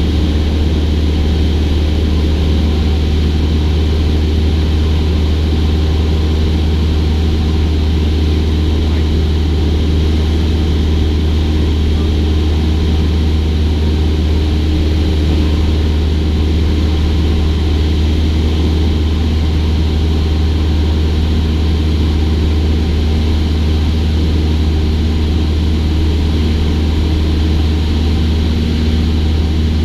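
Steady drone of a Cessna 172's piston engine and propeller in cruise flight, an unchanging low hum with a few steady tones above it.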